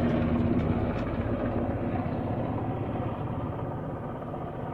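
Helicopter flying overhead, a steady rotor and engine drone that slowly fades.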